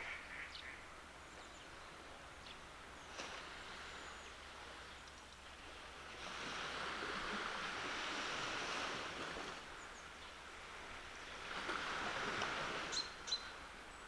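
Small Baltic Sea waves washing softly onto a sandy beach: the surf hiss swells twice, once about midway and again near the end. A few short bird chirps come through over it, two sharp ones near the end.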